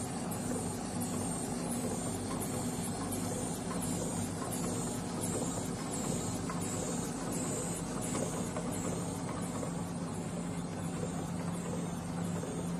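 Lollipop wrapping machine running: a steady motor hum with a regular high ticking about twice a second from its feeding and wrapping mechanism.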